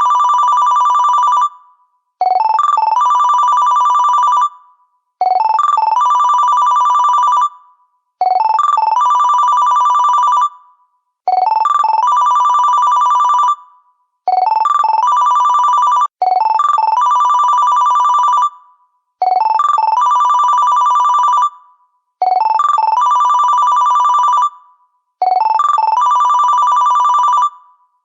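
Huawei stock phone ringtone: a few quick rising notes lead into a fast-trilling two-tone ring, repeating about every three seconds with a short pause between rings.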